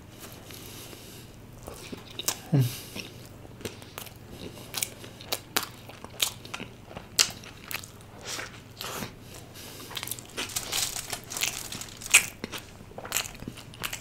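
Close-miked biting and chewing of a burger filled with fried cheese-and-corn spring rolls: irregular crunches and mouth clicks.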